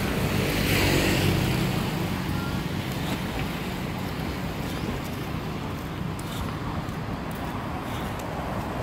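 Road traffic running steadily along a nearby street, with one vehicle's engine louder at first and passing within the first couple of seconds before fading into the general traffic noise.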